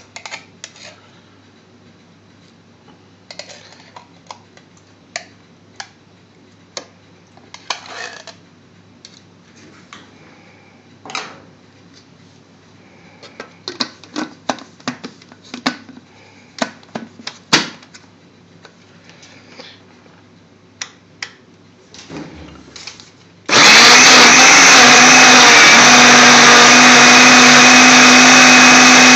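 Scattered light knocks and clicks, then after some twenty-three seconds a countertop blender motor switches on and runs loud and steady, blending yogurt and mango slices into a lassi. Its note steps up a little soon after starting.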